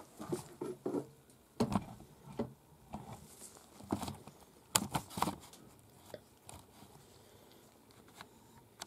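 Handling noises from working an animal hide by hand: irregular crinkles, taps and small knocks, busiest in the first five seconds, then only a few faint ticks.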